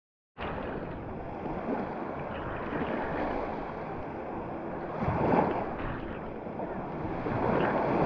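Small Mediterranean waves washing up and draining back over the sand at the waterline, right at the microphone. The sound starts a moment in, with a louder wave about five seconds in and another near the end.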